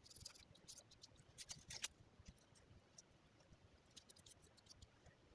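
Near silence with scattered faint small clicks and taps of hand work on clay, busiest in the first two seconds and again about four seconds in.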